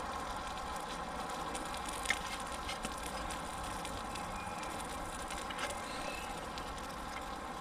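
Wood campfire with a frying pan of egg cooking on it: a steady sizzling hiss with a few small crackles and pops.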